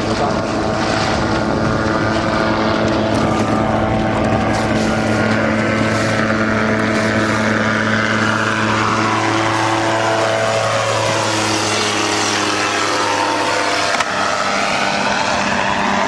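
Xenon gyroplane on floats flying low past, its engine and pusher propeller falling in pitch as it goes by, over the steady hum of the boat's motor.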